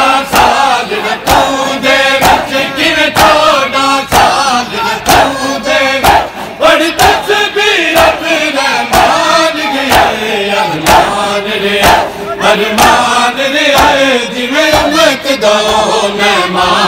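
A crowd of men chanting a Punjabi noha together while beating their chests in matam, with a steady rhythm of sharp hand slaps about two a second.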